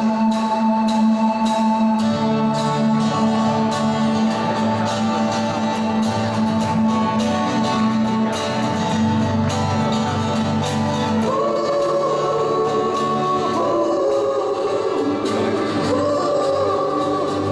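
Live pop-rock band with acoustic and electric guitars, bass, drums and keyboard playing a song's intro: held keyboard tones, then bass and drums come in about two seconds in, and male vocals enter at about eleven seconds.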